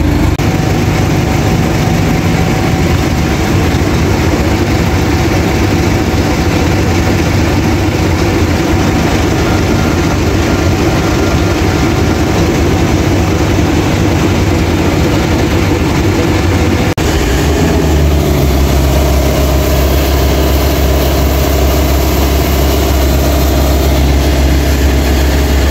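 Heavy diesel truck or machinery engine running steadily. About two-thirds of the way through the sound changes abruptly to a deeper, stronger engine note.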